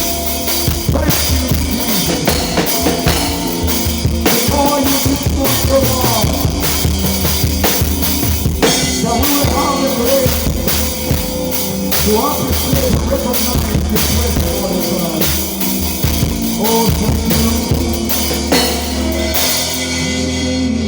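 Live gospel worship band playing an instrumental groove: a busy drum kit with kick, snare and rimshots over bass and other pitched instruments.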